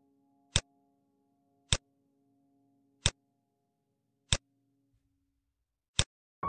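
Five sharp computer mouse clicks, about one every second and a quarter, as point features are placed one at a time on a map, over the faint fading tail of background music.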